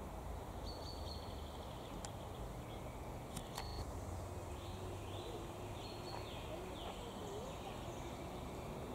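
Forest ambience: a steady low rumble with a few faint, short bird chirps scattered over it.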